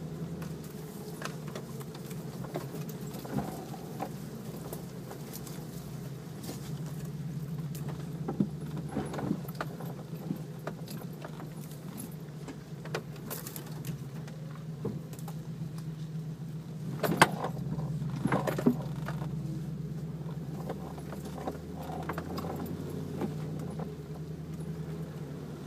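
Four-wheel-drive engine running steadily while driving off-road, with loose things rattling and the body and suspension clunking over rough ground; the loudest knocks come about two-thirds of the way through.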